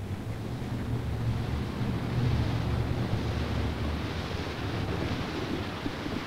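Off-road vehicle engine rumbling low under a steady rushing noise, which grows a little louder about two seconds in.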